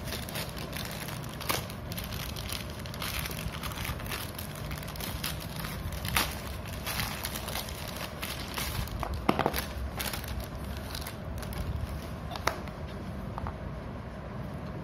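Plastic courier mailer bag being torn open and crumpled by hand: a continuous run of crinkles and crackles with a few sharper, louder rips, over a low steady hum.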